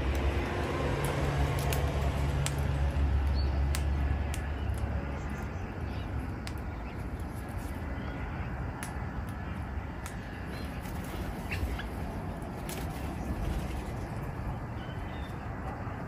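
Steady outdoor background noise with a low rumble that eases off after about four seconds, like a passing vehicle. Scattered faint clicks and a few faint, short bird chirps come through it.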